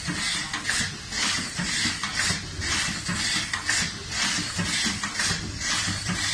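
Pyramid tea bag packing machine running, its mechanism clattering and hissing in a regular repeating cycle.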